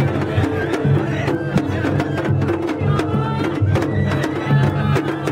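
Matsuri-bayashi festival music played live on a float: taiko drums beaten in a quick, steady rhythm with a high flute melody over them.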